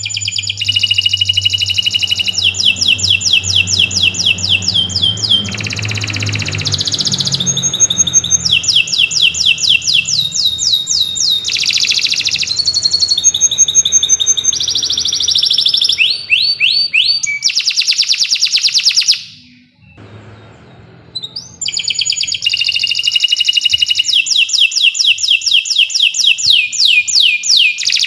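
Domestic canary singing a long, fast song of rapid trills and quick repeated notes, breaking off briefly about two-thirds of the way through before starting again.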